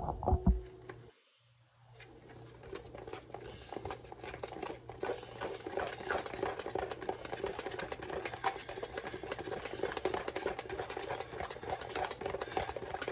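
Spoon stirring and scraping thick brownie batter in a mixing bowl: a steady run of quick, irregular clicks and scrapes from about two seconds in. A few loud knocks open it, followed by a brief silence.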